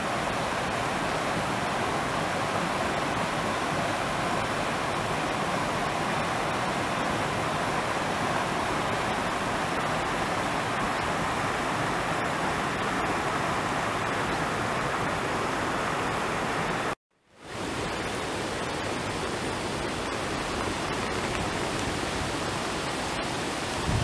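Steady, even rushing noise, like running water. It breaks off sharply for a moment about seventeen seconds in, then goes on at much the same level.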